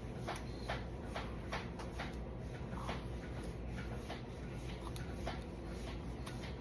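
Knife cutting into melon rind in short strokes: a run of small, sharp clicks, about two or three a second, over a steady low hum.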